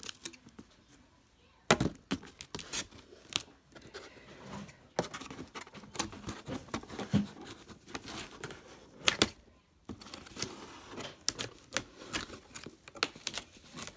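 Scissors snipping at clear plastic wrap, giving irregular sharp clicks and snaps with some crinkling of the plastic; the loudest snaps come about two seconds in and about nine seconds in.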